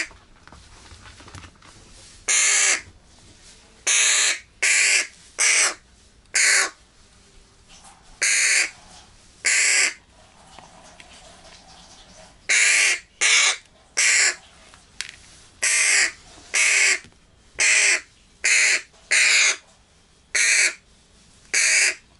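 Fledgling hooded crow giving loud, harsh begging caws over and over, each under a second long. The calls pause for a couple of seconds midway, then come faster, several a second-and-a-half apart.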